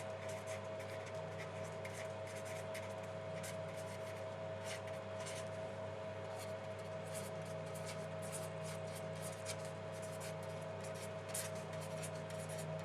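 Pen strokes scratching on a writing surface, a quick irregular run of short scrapes, over a steady electrical hum.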